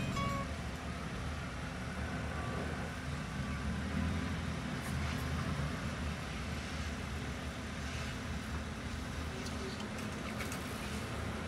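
City street traffic noise at an intersection: a steady low hum of idling and passing vehicles, with a few faint ticks.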